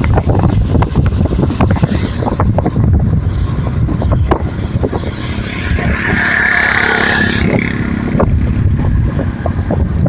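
Wind buffeting the microphone over the rumbling running noise of a moving vehicle. A steadier, higher-pitched hum rises for a few seconds about halfway through.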